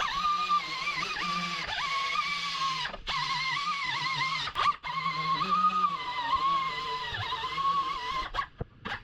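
3-inch dual action sander with 180-grit paper running over body panel paint and metal, its whine wavering and dipping in pitch as it is pressed and moved, stopping briefly twice.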